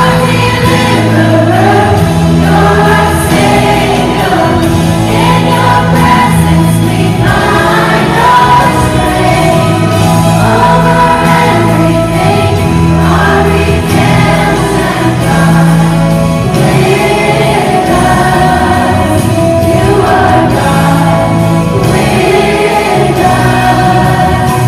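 A large choir singing, with a soloist on a microphone out front, over an instrumental accompaniment of held bass notes that change every couple of seconds.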